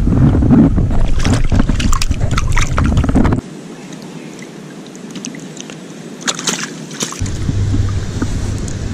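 Water sloshing and splashing as a rainbow trout is handled and released from a landing net held in the water. Wind rumbles on the microphone, loudest for the first three seconds, and cuts off abruptly about three and a half seconds in before returning softer near the end.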